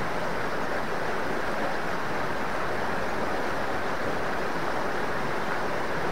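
Fast-flowing small river rushing over stones in white water: a steady, even rush.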